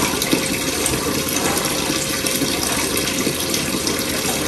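Kitchen tap left running: a steady rush of water from the faucet.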